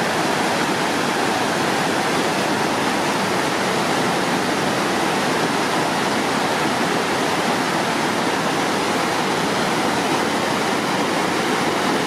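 Steady rush of a shallow mountain stream tumbling over rocks and boulders, an even, unbroken white-water noise.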